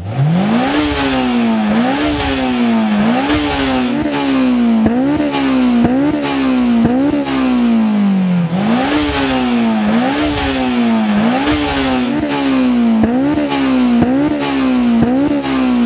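Honda S2000's inline-four engine revved in quick full-throttle blips from idle through its exhaust, about one a second, each a sharp climb in pitch followed by a slower fall. A little past halfway the revs sink lower for a moment before the blips resume, the switch from the stock exhaust to the titanium cat-back, which gives a slightly deeper tone.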